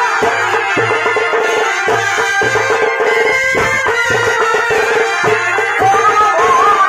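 Traditional Chhau dance music: drums beat a steady rhythm under a wavering, shehnai-like reed melody, which grows stronger near the end.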